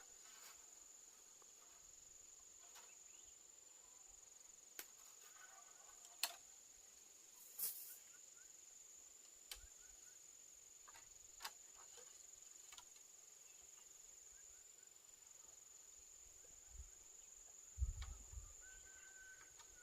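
Insects chirring in one steady high-pitched tone, with a few faint sharp clicks and knocks scattered through and a low thump near the end.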